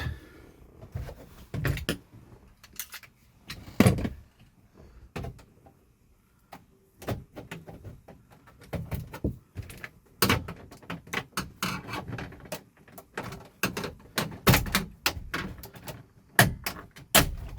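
Plastic dash trim faceplate being pried off its retaining clips by hand: an irregular run of sharp plastic clicks, snaps and knocks, with the loudest knocks a few seconds in and again in the second half.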